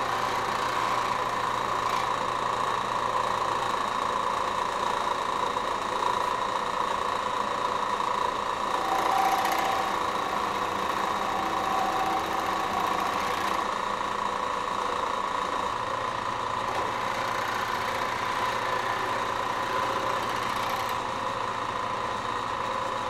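Milling machine running with its end mill cutting a steel chuck key: a steady machine whir with a constant whine that holds unchanged throughout.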